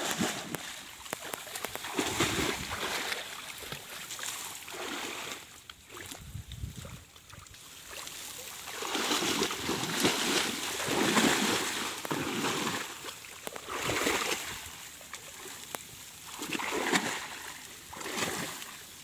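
Irregular splashing in shallow water with reeds rustling as people wade and crouch through a reed bed, in uneven bursts that are loudest around the middle.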